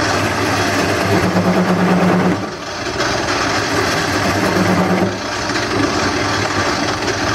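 Wood lathe running with a gouge cutting into the spinning bowl blank to hollow out its centre: a steady motor hum under the rough hiss of the cut. The cut eases for a moment about two and a half seconds in and again around five seconds.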